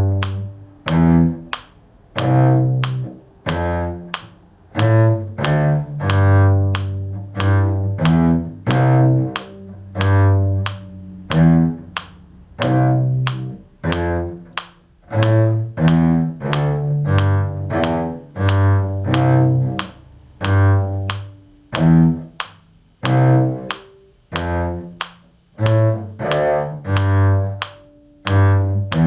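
A low bowed string instrument plays a simple bass line of separate low notes, about one to two a second with short breaks between strokes and a few longer held notes.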